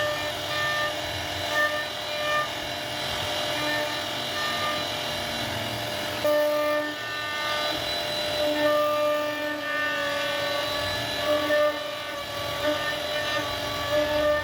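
CNC router cutting wood: a steady spindle whine, with the stepper motors' tones starting, stopping and changing pitch every second or so as the axes move.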